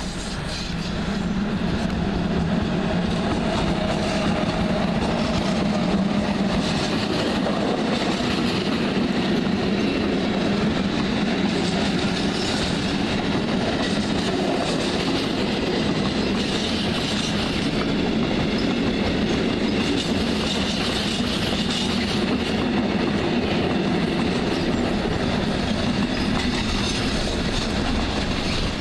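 A train running past on the tracks, building up over the first second or two and then holding steady and loud.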